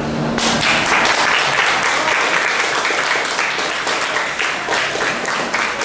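Audience applauding. The clapping breaks out about half a second in, as the last held note of the music dies away.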